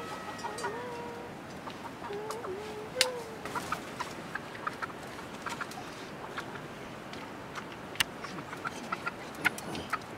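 Domestic chickens clucking, with short calls repeated many times. There are a few sharp clicks among them.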